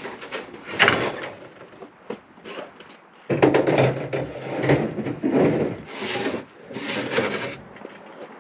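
Metal snowmobile loading ramp being handled and slid onto a pickup truck: several separate scrapes and knocks.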